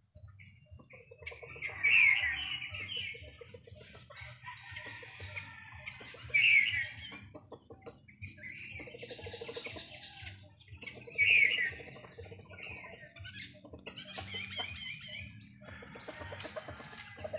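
Chickens calling and clucking again and again, with a few loud, sharp calls about two, six and a half and eleven and a half seconds in.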